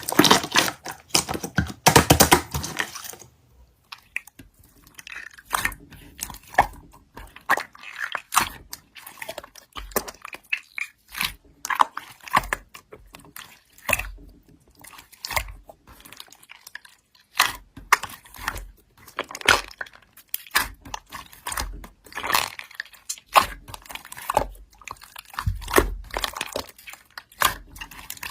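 Slime being played with by hand: irregular wet clicks, pops and crackles as it is squeezed and pressed, a little louder in the first few seconds.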